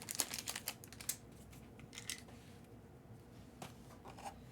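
Panini Prizm basketball cards being handled and flicked through: a quick run of soft clicks and rustles in the first second or so, then a few scattered ticks.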